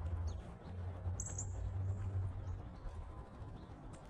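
A few short, sharp, high chip notes, two close together about a second in, typical of a northern cardinal's chip call, over a steady low rumble.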